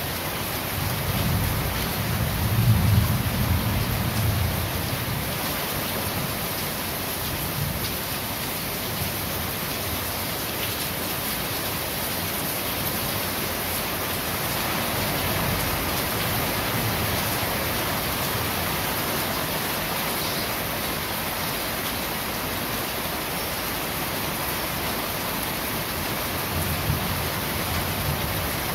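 Steady rain falling on a corrugated roof, an even hiss throughout. A low rumble of thunder swells and fades in the first few seconds, with a smaller rumble near the end.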